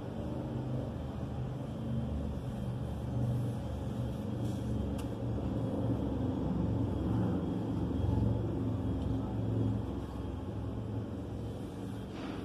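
A low engine rumble, most likely a passing motor vehicle, that grows louder over several seconds and eases off near the end.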